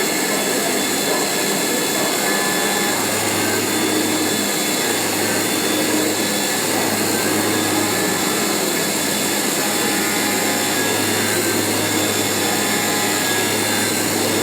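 CNC foam-board cutting machine running steadily, a continuous mechanical whir with a low hum that comes in about three seconds in.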